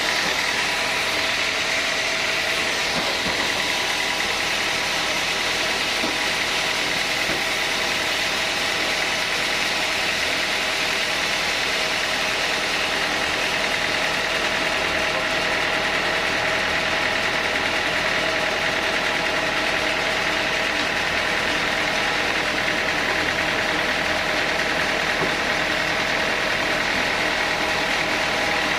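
Sawmill saw running steadily, with a constant machine drone and a high singing tone, while teak logs are sawn into boards.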